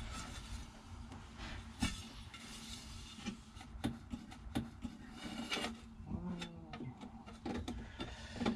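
Car interior trim being handled and fitted: scattered small clicks and taps with rubbing and scraping of parts.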